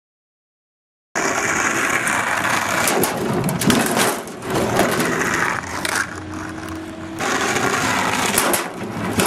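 Dead silence for about a second, then a skateboard rolling on hard pavement, with a string of sharp clacks and knocks from the board popping and landing.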